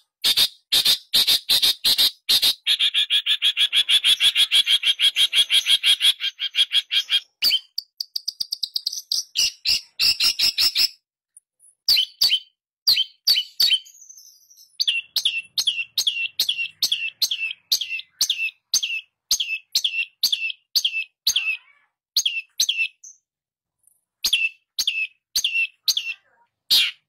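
Long-tailed shrike (pentet) singing in loud, sharp, high notes. A fast, dense chattering run a couple of seconds in gives way to a long string of short repeated notes, about two to three a second.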